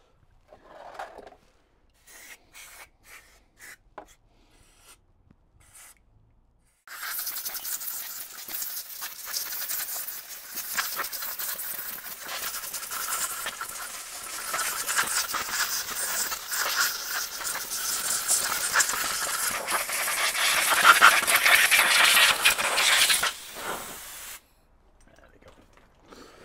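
Compressed air from an airline blow gun hissing through motorcycle carburettor bodies to clear their passages, a long continuous blast that swells and dips and then cuts off sharply. Before it, a few seconds of light clicks and rustles from handling the carburettors.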